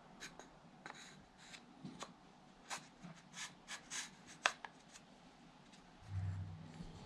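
Hand work on small wooden parts: a run of about a dozen short scrapes and clicks, the kind made by filing or handling the pieces, followed by a brief low hum about six seconds in.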